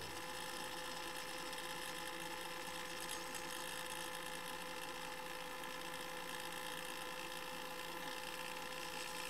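Steady low hum and hiss with a few faint constant tones, even throughout: the background noise floor of a spoken-word recording, with no speech.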